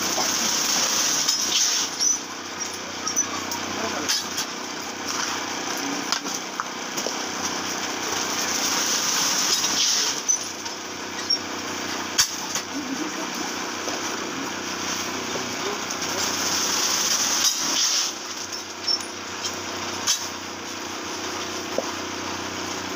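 Steady whirring of an electric fan under the hiss and crackle of rice puffing in hot sand in an iron wok. The hissing swells for a second or two several times, with scattered sharp clicks as the rice is stirred and tossed.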